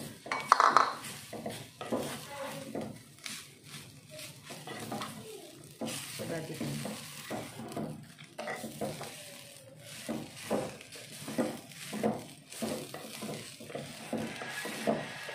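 Wooden spatula stirring and scraping rice through grated coconut and vegetables in a clay pot, in short irregular strokes, over a light sizzle of frying. The loudest stroke comes about half a second in.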